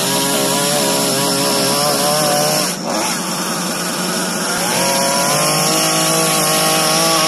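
Chainsaw running at high revs, cutting into a eucalyptus trunk. It drops off briefly about three seconds in, then climbs back to a higher, steady pitch.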